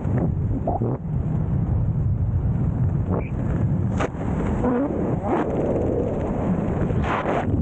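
Wind buffeting the action camera's microphone during parachute canopy flight: a steady low rumble with a few brief, louder gusts.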